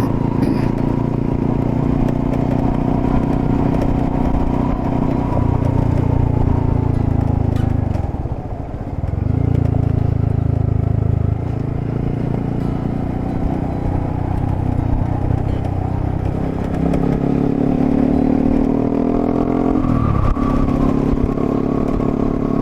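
Honda Monkey's single-cylinder four-stroke engine running while riding on a gravel track. The engine note dips briefly about eight seconds in, climbs in pitch for a few seconds late on, then drops sharply.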